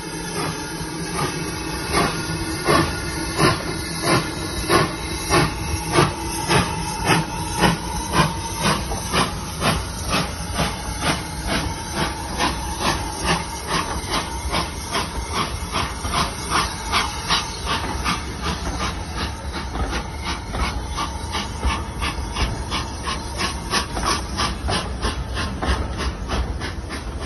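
BR Standard Class 2MT 2-6-0 steam locomotive 78019 pulling away with its train: rhythmic exhaust chuffs, at first about one and a half a second and then coming closer together as it gathers speed, over a steady hiss of steam.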